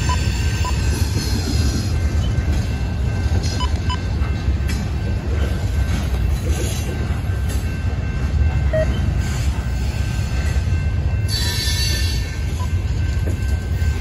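Freight cars of a Canadian National train rolling past over jointed rails: a steady low rumble of wheels on track. About eleven seconds in there is a brief high wheel squeal.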